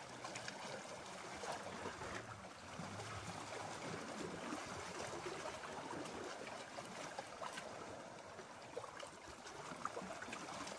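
Small sea waves lapping and sloshing against shoreline rocks, a low steady wash of water with little trickling splashes.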